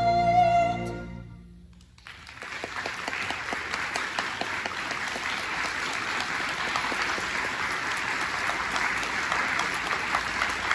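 An orchestra's final held chord, with a solo singer's sustained note on top, fades away within the first two seconds. Then the audience breaks into steady applause, with many separate claps.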